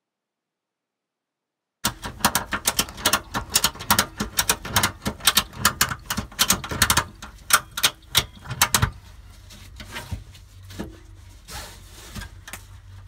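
Ratchet tie-down strap being cranked tight: a fast run of loud clicks from the ratchet starts about two seconds in and goes on for about seven seconds, then gives way to softer scattered knocks and rustles.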